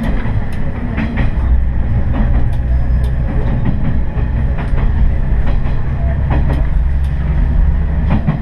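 Noto Railway diesel railcar running along the line, its engine a steady low drone, with the wheels clicking over rail joints at irregular intervals.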